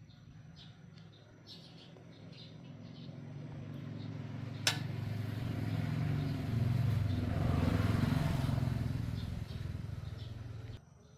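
A motor vehicle's running sound builds up over several seconds and then cuts off suddenly near the end, with a single sharp click about four and a half seconds in.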